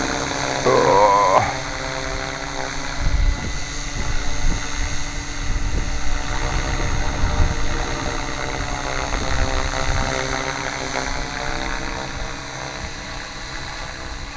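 Gaui radio-controlled helicopter in flight, its main rotor and drive running at a steady pitch throughout, with some irregular low buffeting.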